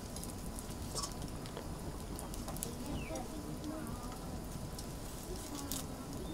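A few small, sharp clicks and taps over a steady low hum, with faint chirping calls in the middle.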